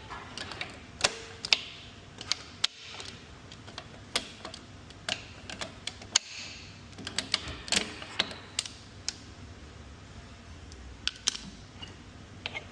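Irregular sharp metallic clicks and clinks, some ringing briefly, of tools and parts being handled during an engine teardown.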